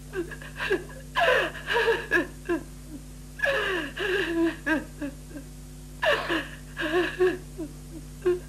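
A woman sobbing: a run of gasping cries, each falling in pitch, coming every second or two over a steady low hum.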